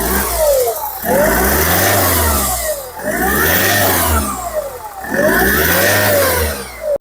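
Turbocharged engine being revved about four times, pitch climbing and falling back with each blip of the throttle. Its exhaust manifold leak has just been repaired, the noise that had been blamed on the turbo.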